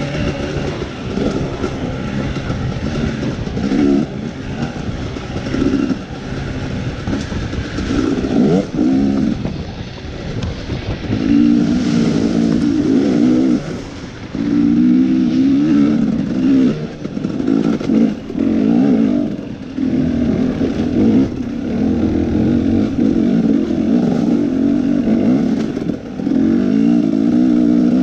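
KTM 250 dirt bike engine under hard riding, revving up and down in repeated bursts of throttle with short let-offs, with scattered knocks and clatter from the bike over rough ground.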